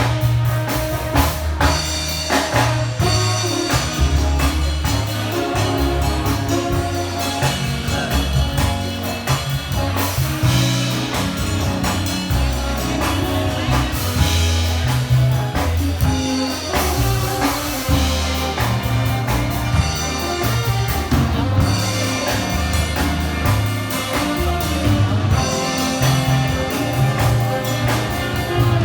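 Big band playing live, with a prominent bass line and drum kit under the ensemble.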